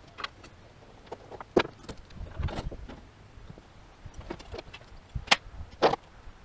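Scattered sharp metallic clinks and knocks, a few louder ones about one and a half, five and six seconds in, as a tie-down strap and its hooks are pulled off a utility trailer loaded with metal scaffolding.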